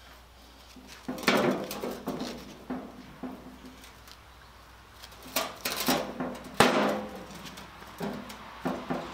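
Sheet steel panels of a bin made from pitted fuel-oil-tank plate clanking and rattling as they are pushed and shifted into line by hand, in a series of irregular knocks with a short ring, the sharpest about six and a half seconds in.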